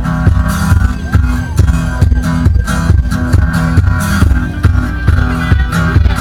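Music track with a steady drum beat, bass and guitar.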